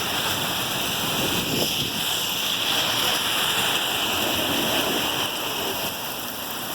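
Rain falling, a steady hiss.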